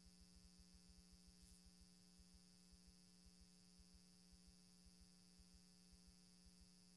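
Near silence: a faint steady electrical hum with low, irregular ticking from the audio feed.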